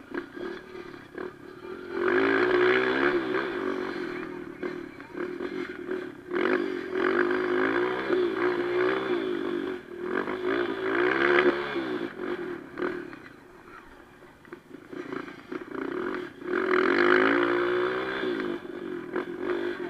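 Kawasaki KLX 150 dirt bike's single-cylinder four-stroke engine, heard from on board, revving up and dropping back in repeated surges as the rider accelerates and shifts around a dirt motocross track; four strong pulls, the loudest near the middle and about three seconds before the end.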